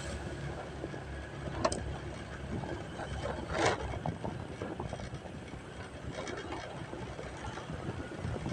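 An engine running steadily, with a sharp click a little under two seconds in and a short burst of noise just before four seconds.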